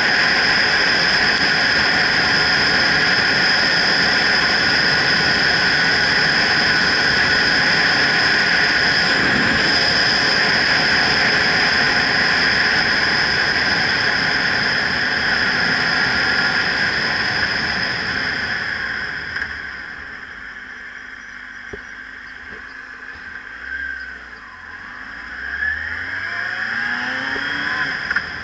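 Loud, steady wind rushing over a helmet-mounted camera's microphone on a moving motorcycle. About two-thirds of the way through it quiets as the bike slows, and the motorcycle's engine is heard revving up in rising sweeps near the end.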